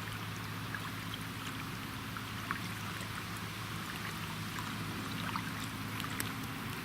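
Water splashing and lapping against a boat's hull as it moves down the river, with many small drips and splashes and a steady low hum underneath.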